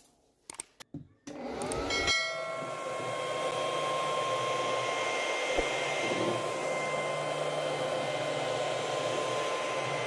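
Homemade vacuum cleaner's small DC motor and impeller fan: a few clicks, then about a second and a half in it spins up with a rising whine and runs steadily, a high motor whine over rushing air.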